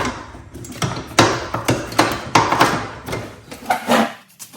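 A run of irregular knocks and clanks, about half a dozen sharp strikes in a few seconds, from tools and parts being worked loose as the mower deck comes off a lawn tractor.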